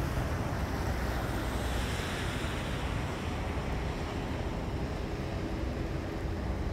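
Wind buffeting the microphone, a low rumble over a steady outdoor hiss, with a faint steady hum coming in during the second half.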